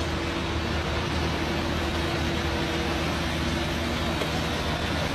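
Vehicle engine running steadily, a constant low rumble with a steady hum above it, over street noise.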